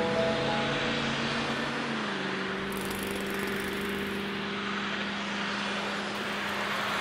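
Street traffic on a wet road: a steady hiss of tyres with a low, steady hum underneath. A few music notes fade out in the first second.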